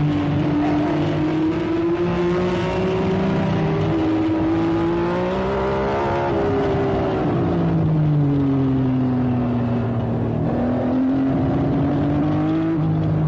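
1957 Maserati Grand Prix car's engine running hard at racing speed, its note climbing and falling with the revs. Brief breaks in the note come about four seconds in and again around six to seven seconds in, followed by a long fall in pitch and a climb again near the end.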